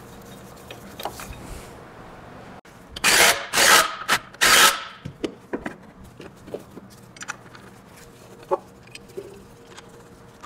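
A power wrench driving in the engine mount bracket bolts in three short bursts, about three to five seconds in, followed by light clicks of tools and parts.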